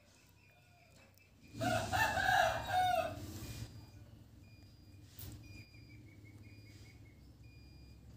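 A rooster crowing once, about a second and a half in, a call of several parts lasting about two seconds.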